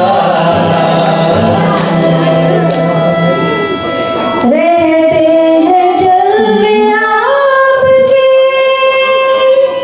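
Indian devotional song (bhajan) with voices, tabla and keyboard, the tabla strokes plain in the first half. About halfway through, a woman's solo voice takes over with long held notes that slide between pitches.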